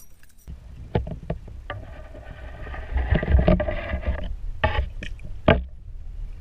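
Muffled underwater sound from a submerged camera: water swishing over a low rumble, with several dull knocks.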